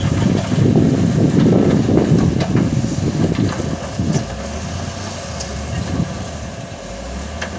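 Heavy earthmoving diesel machinery working in a gravel pit. A loud, rough, clattering rumble over the first four seconds eases to a quieter, steadier engine drone.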